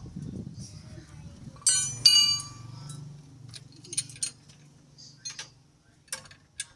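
Metal striking metal: a loud ringing clang about two seconds in, followed by scattered light clicks and taps of hand tools on steel parts.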